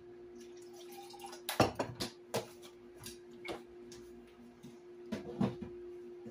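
Sweet tea being poured into a glass, with several sharp clinks of ice against the glass, over a steady low hum.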